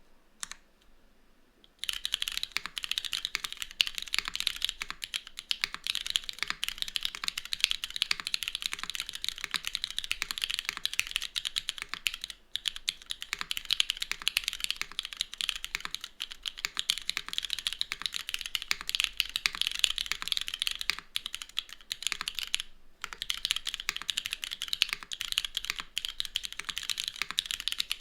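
Mechanical keyboard with Cherry MX2A Black linear switches, a tadpole-mounted full aluminium plate and no foam dampening, typed on rapidly and continuously. The typing starts about two seconds in and has two brief pauses.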